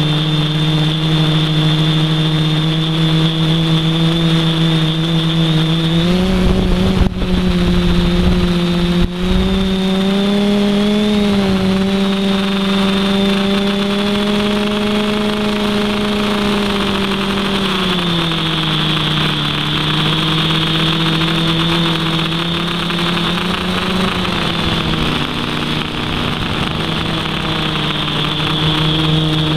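Multirotor drone's electric motors and propellers humming steadily, heard from a camera mounted on the craft. The pitch rises about six seconds in, stays higher until about eighteen seconds, then drops back, with a brief low rumble between about seven and nine seconds.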